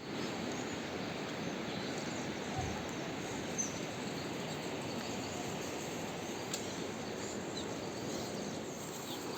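Steady outdoor background noise with a few faint, short bird chirps high above it.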